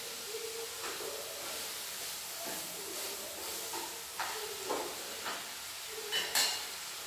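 Food sizzling in a pan on a lit gas burner, a steady frying hiss, while chopsticks stir it and clack against the pan several times in the second half, loudest near the end.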